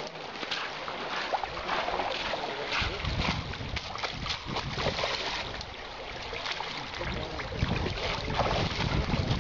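Rushing creek water with wind buffeting the microphone; the low wind rumble comes in about three seconds in and again near the end.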